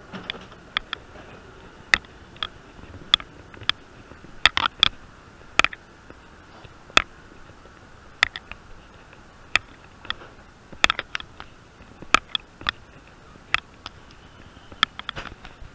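Irregular sharp clicks and taps, about one or two a second and some in quick pairs, as someone walks through passenger train cars, over a faint steady hum.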